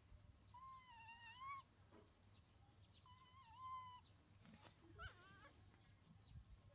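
Baby monkey giving faint, drawn-out, wavering cries: two about a second long, then a shorter, higher one about five seconds in.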